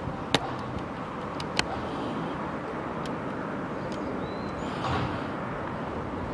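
Steady outdoor background noise with distant road traffic, broken by two sharp clicks in the first two seconds.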